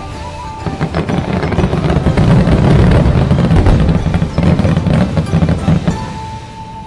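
Aerial fireworks bursting overhead, a dense run of booms and crackling shells, mixed with music; the bursts die away near the end.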